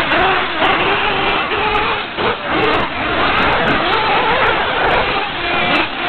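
Several radio-controlled off-road cars racing on a dirt track, their motors rising and falling in pitch as they speed up and slow down through the course.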